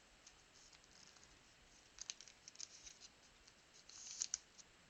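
Near silence broken by faint, scratchy clicks of trading cards being handled and slid against each other, in a short cluster about two seconds in and again about four seconds in.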